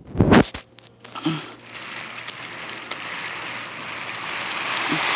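A loud clatter, then a rattling rumble that builds steadily: small die-cast toy trains rolling along a wooden toy track.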